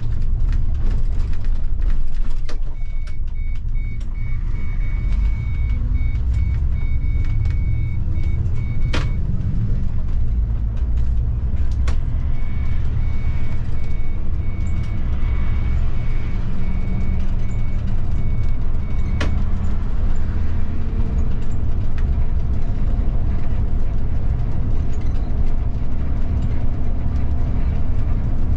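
Bus engine and road rumble heard from the driver's cab, with a pitch rising as it pulls away. A high electronic warning beep repeats in two runs of about six seconds each, and a few sharp clicks sound.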